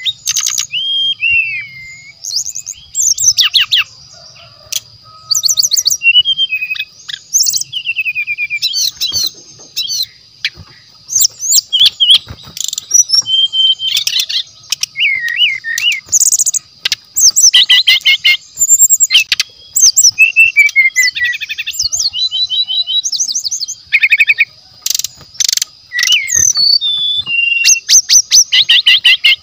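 Brown-chested jungle flycatcher singing loud, rapid, varied phrases of whistles, slurred notes and fast trills, separated by short pauses, over a steady high-pitched drone.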